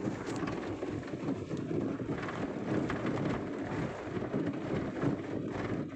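Rumble of a vehicle driving over a rough dirt track, with wind buffeting the microphone. It is a steady, ragged noise with no clear engine tone.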